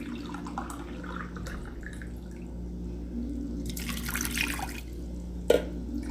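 A glass of water being poured into a pot over sliced ginger, garlic and star anise, splashing most strongly about four seconds in. A single sharp knock follows near the end.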